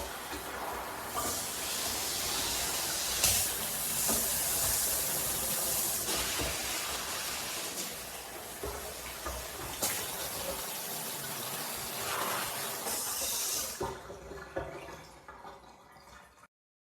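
Water spraying from a handheld hose sprayer in a steady hiss with a few small knocks; it fades near the end and then cuts off abruptly.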